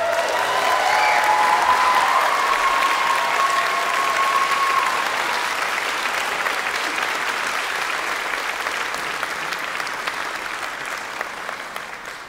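Audience applauding at the end of a concert band piece, with a few voices cheering over it in the first few seconds; the applause thins out and fades near the end.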